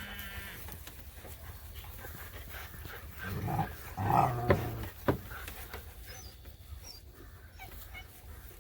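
Dog sounds: two short spells of panting or low vocalising about three and four seconds in, with a couple of sharp knocks just after.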